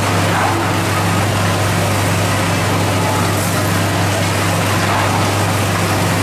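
Stainless-steel chestnut-roasting machine running: a steady motor hum under a dense churning noise as its stirrer turns the chestnuts through dark roasting sand.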